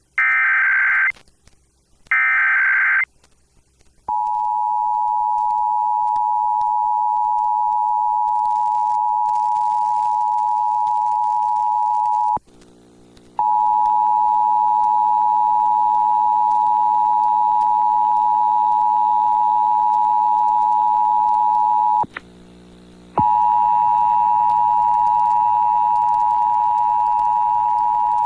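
Emergency Alert System monthly test. It opens with the last two bursts of the SAME digital header's screeching data tones. About four seconds in, the steady two-tone EAS attention signal starts and holds, breaking off for about a second twice.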